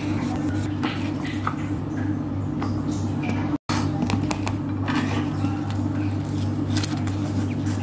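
Felt-tip marker strokes on paper, then, after a brief dropout, the light rustle and ticks of a small spiral notebook being handled and its pages flipped. A steady low hum runs underneath and is the loudest sound.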